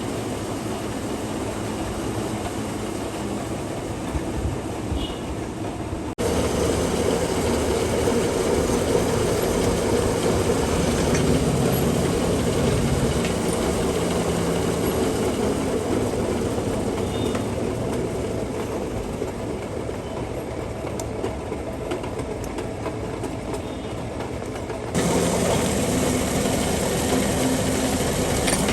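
Metal lathe running steadily. The sound jumps louder about six seconds in and changes again abruptly near the end.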